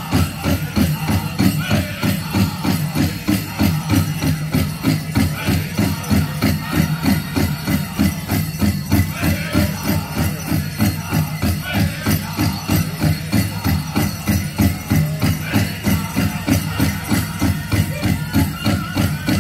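Powwow drum group playing a steady drumbeat, about three beats a second, with singing over it and the jingle of dancers' bells.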